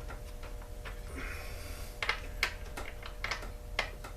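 Light clicks and knocks of tools and chainsaw parts being handled on a workbench as the bar and chain come off: several sharp separate taps in the second half, with a brief rustle about a second in, over a faint steady hum.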